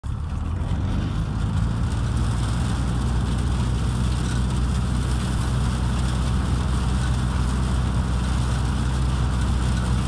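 Peanut threshing machine running steadily under load: a deep, even drone with a broad rushing noise over it.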